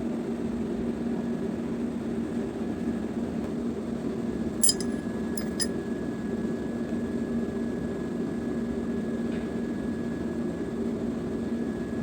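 Steady machine hum of workshop background, with two or three light metallic clinks about five seconds in, as of metal engine parts being handled.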